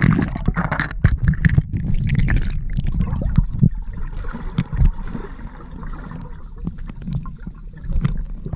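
Muffled underwater sound picked up by a phone held below the pool's surface: a low rumble of moving water and bubbling, broken by frequent knocks and clicks of water and hands against the phone.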